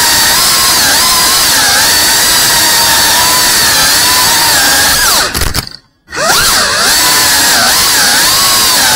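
A 3.5-inch cinewhoop drone's motors and propellers whining, the pitch wavering with the throttle. About five seconds in the whine drops steeply to near silence for a moment as the throttle is chopped, then sweeps back up as power comes back on.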